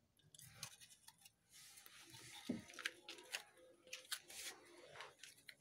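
German Shepherd chewing a piece of sugarcane: faint, irregular crunching and cracking.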